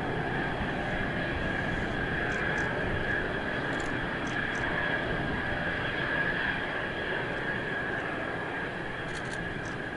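Mitsubishi F-2's single F110 turbofan at taxi power: a steady high whine over a broad rumble, swelling slightly mid-way as the jet turns toward the listener.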